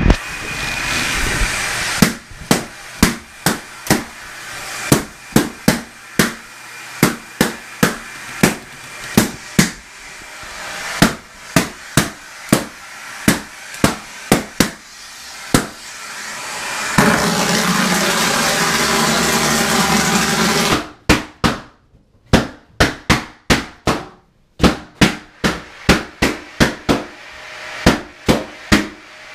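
Balloons popping one after another as they are sucked into a vacuum cleaner hose: sharp, loud pops about once or twice a second. The vacuum cleaner's steady running lies between the pops and is heard on its own for about four seconds past the middle.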